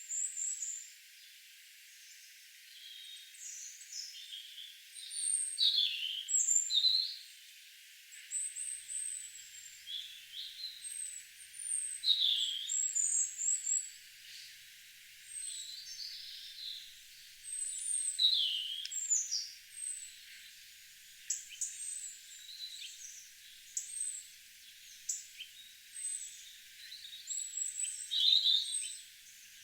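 Several garden songbirds singing and calling together: short high chirps and quick down-slurred whistles, overlapping, in bursts with brief lulls.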